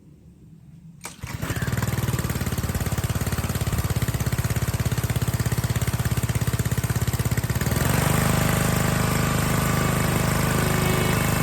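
A motor starts suddenly about a second in and runs loudly with a fast, even pulsing beat. It changes to a steadier, smoother running note a little before the end.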